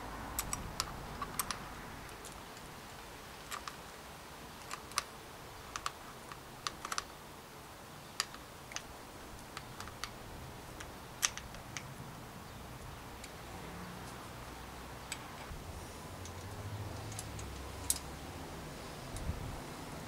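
Irregular small clicks and taps of a saddle being seated on the seatpost's clamp and the clamp bolt being worked with a thin tool under the saddle.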